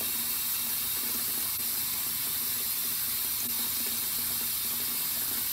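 Bathroom sink faucet running steadily, its stream splashing into water that has pooled in the plugged basin.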